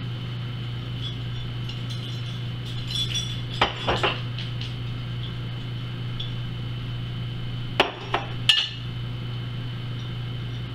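Small dishes clinking and knocking against a big mixing bowl as chopped vegetables are tipped in: two sharp knocks about four seconds in and three more around eight seconds in, over a steady low hum.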